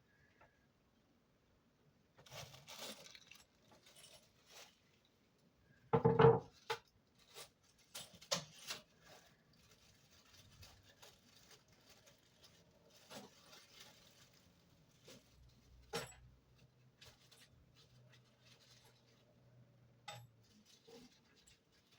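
Handling noises from fitting a window air conditioner: scattered clicks, knocks and rustles of parts and tools being handled. The loudest is a single thump about six seconds in.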